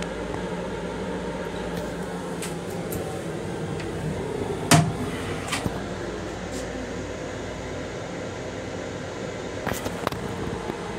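Steady mechanical hum of an M7 commuter railcar's restroom, ventilation and train running together. Almost five seconds in comes one sharp knock as the plastic toilet lid is raised and swings back, followed by a couple of lighter clicks, and a few more light clicks near the end.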